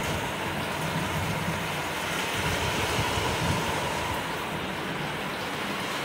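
Heavy rain pouring steadily onto trees and muddy ground, a constant hiss, with gusts of wind buffeting the microphone now and then.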